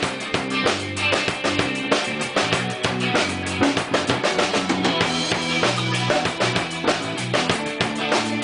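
Band playing an instrumental passage: a drum kit with steady kick and snare hits drives the music over guitar and sustained low bass notes, picked up live by a room microphone.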